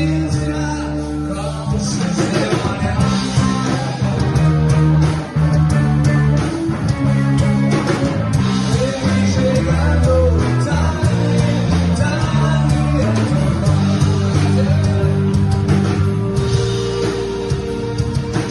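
Rock song with guitar and a singing voice.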